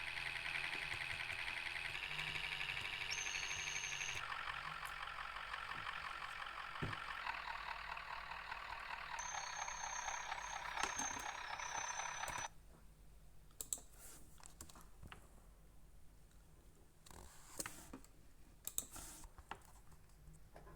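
Cabin noise inside a MAZ-105 city bus: a steady, fast rattling hum that cuts off suddenly about twelve seconds in, leaving a quiet background with a few scattered light clicks.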